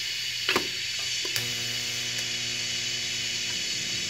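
MIG welder arc running steadily with a crackling sizzle, two sharp pops about half a second and a second and a half in, and a steady hum joining in after the second pop, as a steel exhaust hanger mount is welded to the frame.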